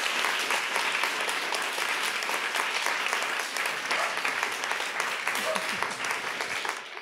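Audience applauding, a dense steady clatter of many hands clapping that fades out near the end.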